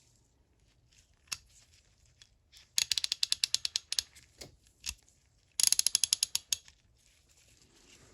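Kobalt 1/2-inch drive ratchet (model 22317, 36-tooth gear) being worked, its pawl clicking over the gear in two quick runs of about a dozen clicks a second, with a few single clicks between.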